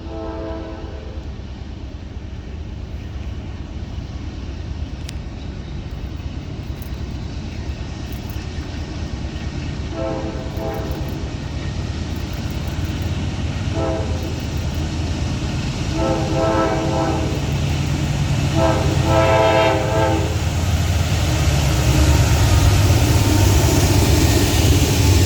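Freight train led by CSX GE AC4400CW diesel locomotives approaching, the low engine rumble growing steadily louder. The lead locomotive's chime horn sounds several blasts, one of them short, in the pattern used for a grade crossing.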